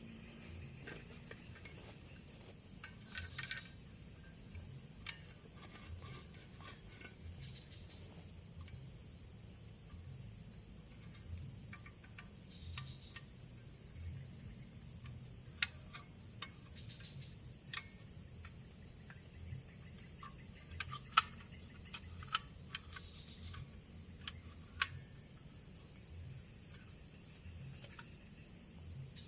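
Steady high-pitched drone of forest insects such as crickets, with scattered sharp clicks and snaps, the loudest a little past halfway.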